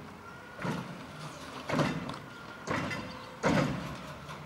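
Automated side-loader garbage truck's arm dumping a wheeled trash cart into the hopper: four clattering bangs about a second apart as the cart is shaken out, with a faint mechanical hum between them.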